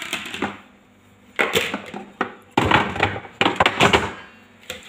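Clattering knocks and clicks of things being handled and set down, in four or five quick clusters with short quiet gaps between them.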